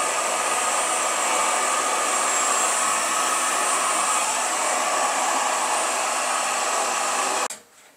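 Electric heat gun blowing steadily, a constant fan-and-air whir, while it shrinks heat-shrink sleeving over a crimped lug on a heavy battery cable. It stops abruptly near the end.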